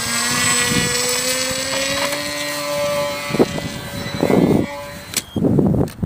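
Electric motor and propeller of a small foam RC plane whining, the pitch rising slightly and then holding before it cuts off about five seconds in. Several short rushes of noise come in the second half.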